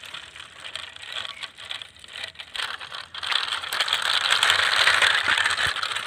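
Plastic toy trucks rattling and clicking over rough concrete, then a louder gritty rolling hiss from about three seconds in.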